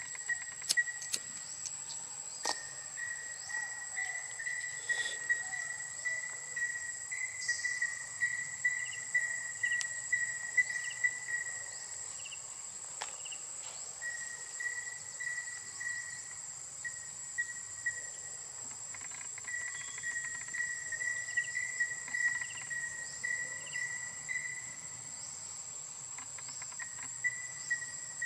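Insects calling: a steady high-pitched buzz with a lower pulsing trill that stops and restarts twice, and a few scattered sharp clicks.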